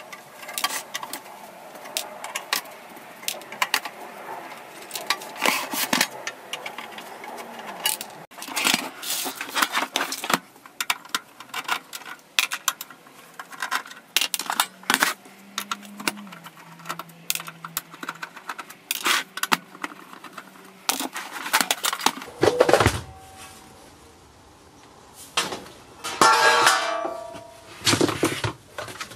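Screwdriver working small screws out of a sheet-steel receiver case, with irregular clicks and clinks of screws and metal parts being handled. Near the end come louder metallic scrapes and rattles as the steel cover is worked off.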